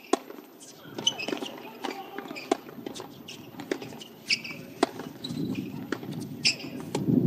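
Tennis rally on a hard court: a tennis ball is struck by racquets and bounces, giving sharp pops about every half second to second, with players' shoes squeaking on the court. Crowd noise swells near the end as the point ends.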